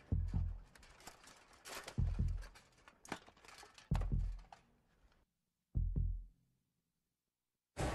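Slow, deep thuds from a film soundtrack, about one every two seconds, each dying away quickly. After about five seconds they give way to near silence, broken by one last thud, and music comes in right at the end.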